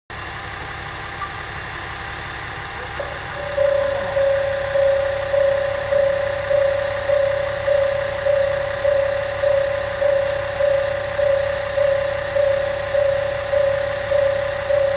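Japanese level-crossing alarm starting about three and a half seconds in: an electronic bell striking evenly, a little under two times a second, warning of an approaching train. Beneath it, a steady low hum of an idling diesel engine.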